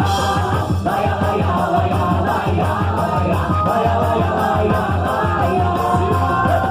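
Loud festa junina music from the quadrilha's sound system, with a steady bass line and instruments, and singing starting up.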